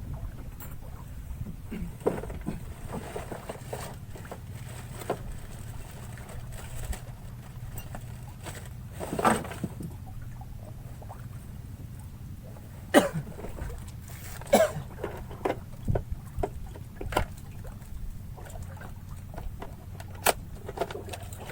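Ambience aboard a small fishing boat: a steady low rumble of water and wind against the hull, broken by scattered knocks and a few short creaks.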